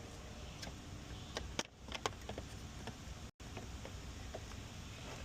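Light, scattered metallic clicks and taps of sockets and hand tools being handled while a socket size is picked out.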